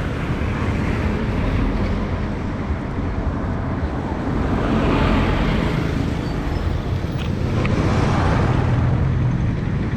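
Road traffic passing close by: a steady rumble of engines and tyres, swelling as vehicles go past about halfway through and again near the end.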